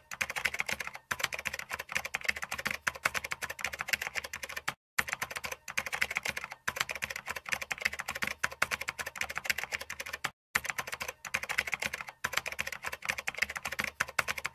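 Computer keyboard typing sound effect: rapid key clicks in runs of a few seconds, broken by brief pauses.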